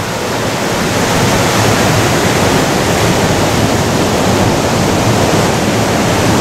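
Ocean surf breaking over rocks and washing up the shore, a loud steady rush of water.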